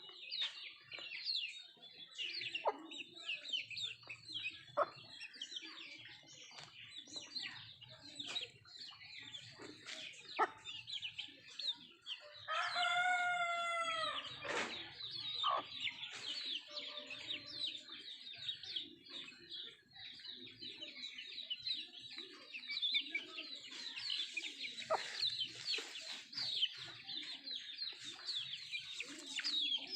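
Country chickens (nattu kozhi) clucking while they feed, over a constant busy high-pitched chirping. A rooster crows once, a long rising-and-falling crow about halfway through.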